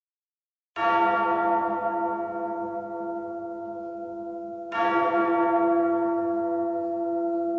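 A large bell tolling twice, about four seconds apart, each stroke ringing on and slowly fading.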